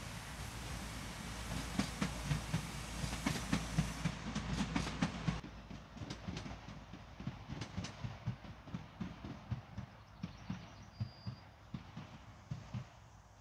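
Train wheels clattering over rail joints and points in a steady rhythm as a train rolls past and away. Sharp clicks come in the first five seconds, then the clatter fades.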